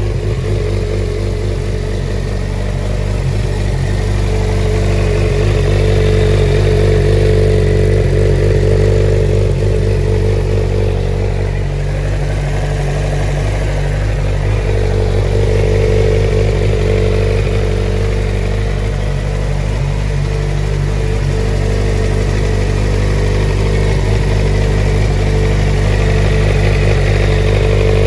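Suzuki GSX-R 600 motorcycle's inline-four engine idling just after its first start following a long time sitting unused, the level rising and falling gently a few times.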